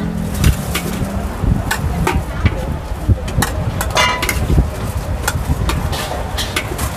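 Metal spatula clanking and scraping against a large steel wok while wide rice noodles are stir-fried: an irregular run of sharp metallic clinks over a steady low rumble.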